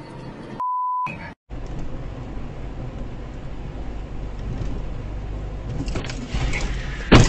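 Steady low rumble of a car's engine and tyres as heard by a dashcam, ending in a sudden loud crash as the car collides with an SUV crossing in front of it. About half a second in, a short steady beep.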